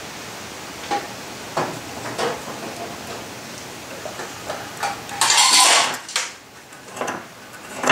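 Light metallic clicks and taps of a steel combination square and scriber on a steel workbench, with one longer scratching sound about five seconds in as the scriber is drawn along the square across the steel block, and a sharp clank near the end.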